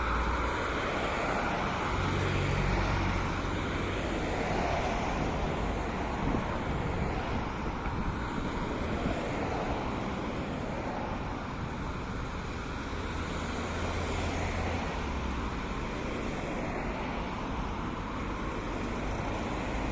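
Steady city street traffic noise, with the low rumble of passing vehicles swelling about two seconds in and again around fourteen seconds in.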